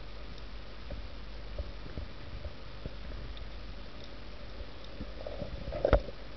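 Underwater reef ambience picked up by a submerged camera: a steady low hiss with scattered faint clicks, and one louder knock with a brief ring about six seconds in.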